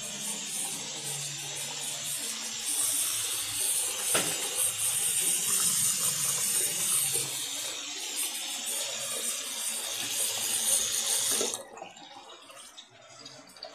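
Single-lever mixer tap running a steady stream of water into a ceramic washbasin and down its drain, then shut off near the end, leaving only a faint trickle.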